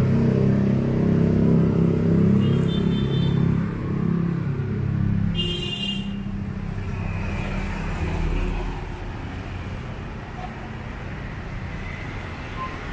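Street traffic: a motor vehicle's engine running close by, then fading away over the first half, with two short high-pitched tones about three and six seconds in.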